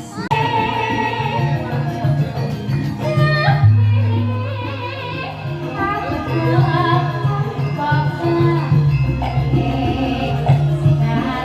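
Live band music with singing: a wavering vocal line over sustained bass notes and other pitched instruments.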